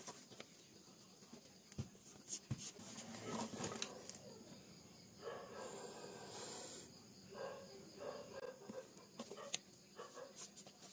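Wooden drawing pencils clicking and tapping against a wooden desk as they are picked up and set down, a few separate knocks. A faint pitched background sound comes and goes around the middle.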